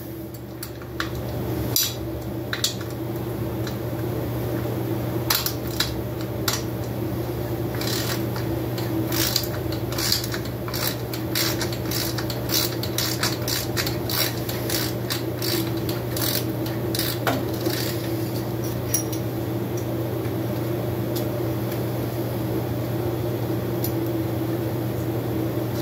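Metal wrench clicking and clinking against a nut and bolt on a motorcycle engine while the nut is worked loose, in quick irregular clicks, busiest in the middle. A steady low hum runs underneath.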